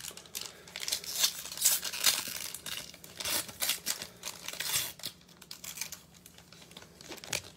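Foil wrapper of a baseball card pack being torn open by hand, with crisp crinkling and tearing; the noise is densest for the first five seconds or so, then eases to lighter rustling as the cards come out.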